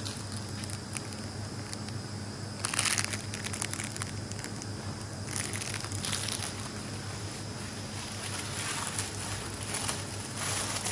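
Packaging being crinkled and rustled in the hands in three bursts, over a steady low hum.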